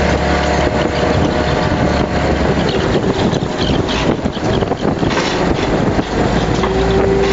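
Fishing boat's engine and deck machinery running steadily, with wind buffeting the microphone. The low hum fades in the middle and comes back near the end, along with a short steady whine.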